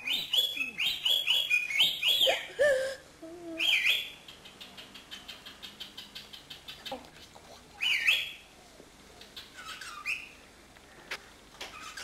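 Pet cockatiel whistling and chirping: a quick run of rising whistled notes for about three seconds, then a soft rapid ticking chatter. Single louder swooping calls follow about eight and ten seconds in.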